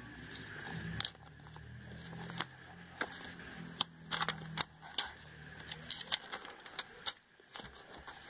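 Glossy pages of a printed sales catalogue being turned by hand: a string of irregular sharp paper snaps and rustles.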